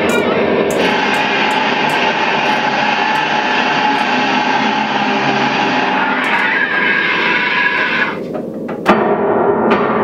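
Experimental ensemble music: a dense, sustained drone of clarinet and effects-processed electric guitar, with scattered light clicks. It thins out about eight seconds in, then comes back with a sharp attack.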